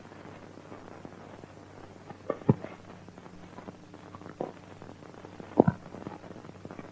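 Old film soundtrack with a steady low hum and hiss, broken by a few short, sharp thuds: two close together about two and a half seconds in, one at about four and a half seconds, and a louder one at about five and a half.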